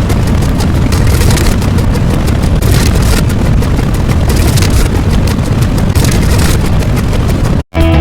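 Loud, harsh rumbling noise with heavy bass and no clear tone, cutting off abruptly near the end.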